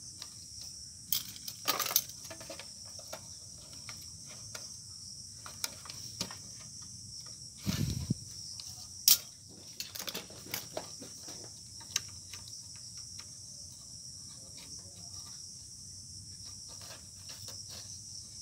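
Scattered small clicks, taps and scrapes of fingers working a chip out of its socket on a circuit board, the loudest a dull knock about eight seconds in. A steady high insect-like chirring runs underneath.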